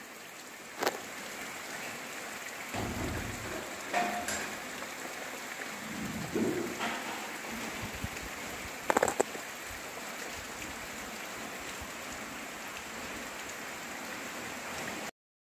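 Heavy rain falling steadily on flat roofs and foliage, a dense even hiss. A brief low rumble comes about three seconds in, and a few sharp knocks stand out, the loudest about nine seconds in.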